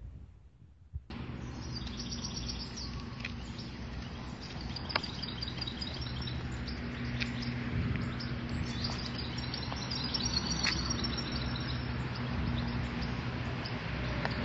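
Small birds chirping in quick repeated series over steady outdoor background noise with a low steady hum, coming in abruptly about a second in.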